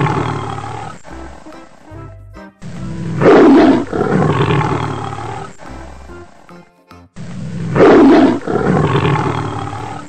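Tiger roaring: two long, loud roars about four and a half seconds apart, each trailing off, with the tail of an earlier roar at the start, over background music.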